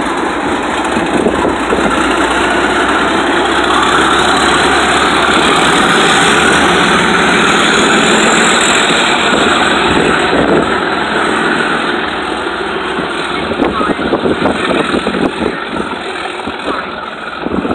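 Diesel locomotive running as it draws away along the track, its engine and rail noise loud and steady, then slowly fading in the last few seconds as the rumble turns gusty.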